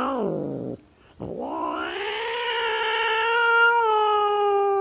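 Tabby cat caterwauling in a defensive threat yowl at a dog. One drawn-out call falls in pitch and stops under a second in. A second long, steady yowl begins just over a second in and is held to the end.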